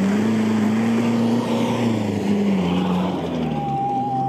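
Engine of a Toyota Land Cruiser 70-series off-road pickup running under load as it drives through mud, its pitch rising a little and then dropping about three seconds in.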